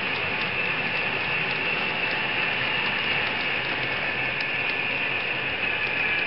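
Model freight cars rolling along model railroad track: a steady, even whirring clatter of wheels on rail, with a few faint light clicks.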